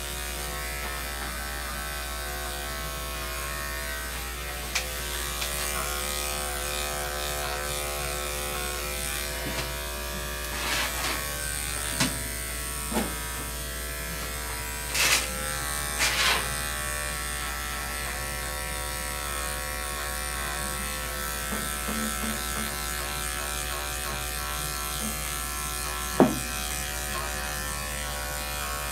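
Electric dog-grooming clipper running with a steady buzz, with a few short clicks and knocks over it, the sharpest near the end.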